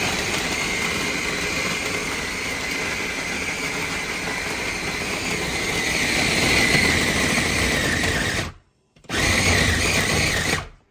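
KitchenAid mini food chopper's motor running as it grinds pitted dates into a paste, with a steady whine that grows louder around six seconds in. It stops for about half a second near the end, runs again for about two seconds, then stops.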